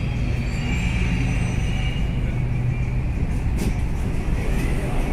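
Delhi Metro Red Line train running past a station platform, heard from inside the coach: a steady low rumble with a low hum that fades out about three seconds in.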